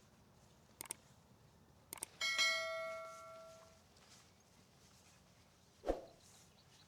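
A metal object is struck once and rings with a clear, bell-like tone that fades over about a second and a half, after two light clicks. A dull thud follows near the end.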